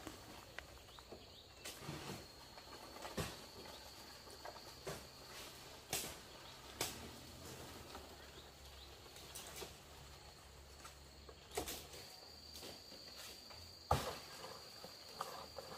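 A faint, steady high-pitched insect trill that comes and goes, with scattered knocks and rustles; the loudest knock comes near the end.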